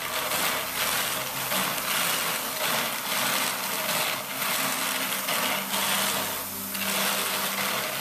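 Hand-cranked Mark V drum carder turning, its wire-toothed drums brushing wool and alpaca fiber with a steady, rhythmic rasping hiss over a low mechanical hum.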